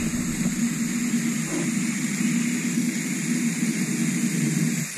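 Garden hose spray nozzle shooting a jet of water onto grass: a steady rushing hiss of water.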